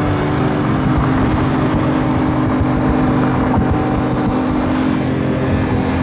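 Car engine running steadily at speed, with road and wind noise.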